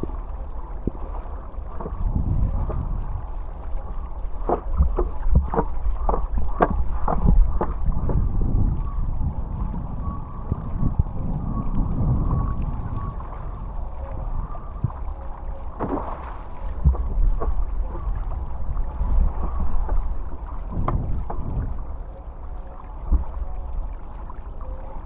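Wind buffeting the microphone and water rushing past a hydrofoil board riding downwind, with a run of sharp splashes and knocks a few seconds in and more around the middle and near the end.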